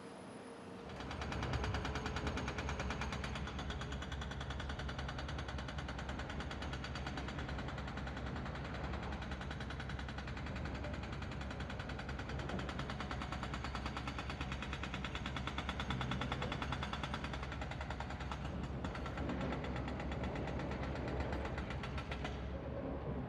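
A motor engine running steadily with a fast, even knocking pulse, starting about a second in.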